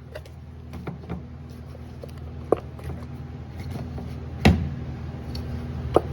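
Scattered sharp clicks and knocks of hand tools and parts being handled during ignition coil removal, the loudest three about 2.5, 4.5 and 6 seconds in. A steady low hum runs underneath.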